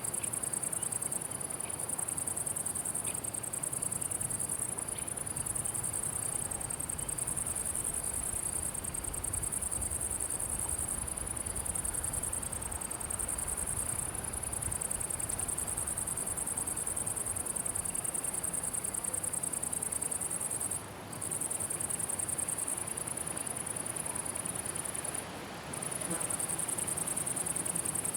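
Chorus of meadow insects stridulating: a continuous high-pitched buzz that breaks off briefly twice, about three quarters of the way through.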